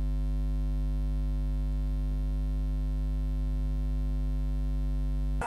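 Steady electrical hum: a low buzz with a stack of even overtones that holds unchanged and cuts off suddenly at the very end.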